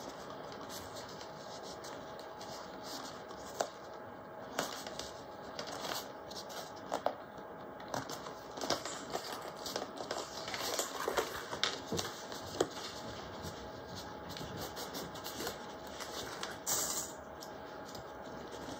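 Waterproof canvas binding rustling and scraping under the hands as it is folded over the seam and pressed down onto double-sided tape, with scattered light clicks and taps.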